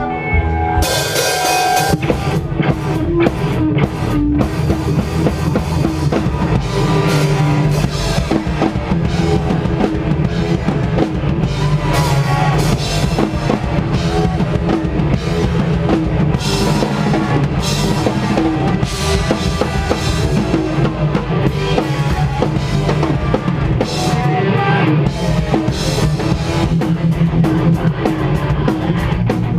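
Post-hardcore band playing live at full volume: drum kit with a driving bass drum, and guitars. The whole band comes in about a second in with a crash.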